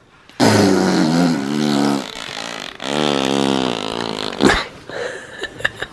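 A young girl blowing two long, buzzing raspberries with her lips, imitating fart noises.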